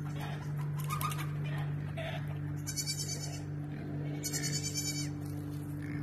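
Goats bleating: two wavering calls, about three and four-and-a-half seconds in, each under a second long.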